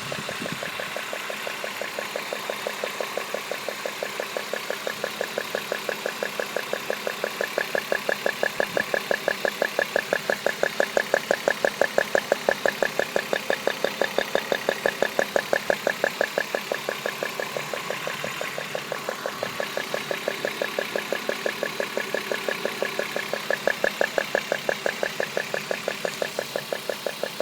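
BMW E36 323i's M52 straight-six engine idling with a fast, even ticking, about five ticks a second, a little louder in the middle and again near the end. The owner traces this new, weird noise to the ignition coil packs.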